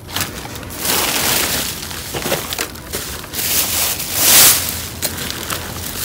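Plastic bags and plastic wrap crinkling and rustling as gloved hands rummage through dumpster trash, in uneven bursts, the loudest a little after four seconds in.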